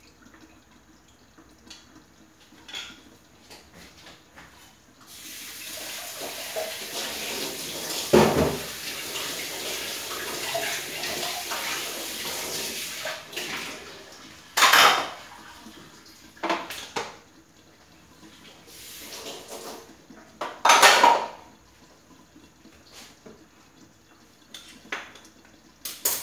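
Kitchen sounds: water runs for about eight seconds, and metal pots and dishes clank several times, the loudest clanks coming in the second half.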